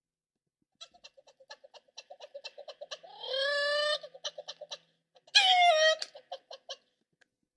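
Recorded animal-like calls: a quick run of short pitched calls about six a second, broken by two longer drawn-out cries, the first rising and then held, the second falling slightly.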